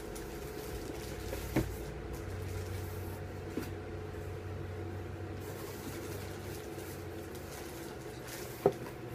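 Hands handling and opening the packaging of a mailed package, with two sharp knocks, the louder one near the end, over a steady low hum.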